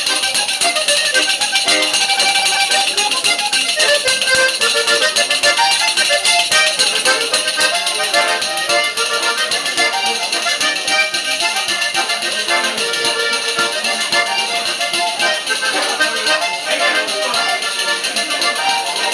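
Basque trikitixa music: a diatonic button accordion playing a melody while a pandero, a jingled frame drum, is struck and shaken, its jingles sounding steadily throughout.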